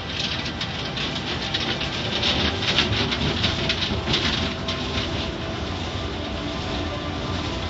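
Water jets and spray pelting the windshield and body of a car in an automatic car wash, heard from inside the cabin. The pelting is densest in the first few seconds, then settles into a steady rush.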